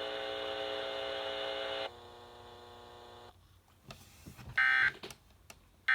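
A steady buzzing tone with many overtones, which drops to a lower level about two seconds in and cuts off after about three seconds. A couple of faint clicks follow, then near the end a short, shrill data burst: an Emergency Alert System end-of-message code.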